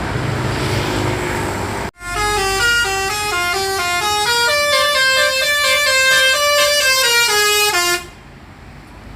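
Basuri telolet multi-tone horn on a Mercedes-Benz double-decker bus playing a tune of many short notes stepping up and down, two tones at once, for about six seconds before it stops abruptly. Before it, a steady engine-and-station rumble breaks off suddenly about two seconds in.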